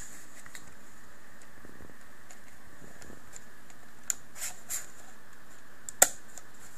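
Short plastic clicks and taps from a hand handling a small plastic digital clock: a few light clicks about four seconds in, then one sharp, loud click about six seconds in, over a steady faint hiss.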